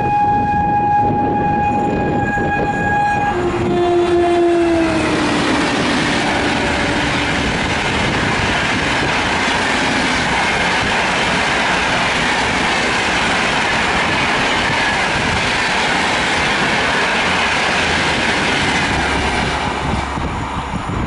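A WAP4 electric locomotive's horn holds a high note for about three seconds, then drops to a lower note that slides down in pitch as the locomotive passes at speed. The coaches then rush past loudly for about fifteen seconds, the noise easing near the end.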